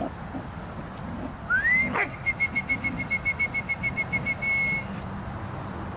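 A clear whistle rises in pitch, then breaks into a quick run of short notes on one pitch, about seven a second, and ends in a brief held note. A sharp click comes just as the rising note peaks.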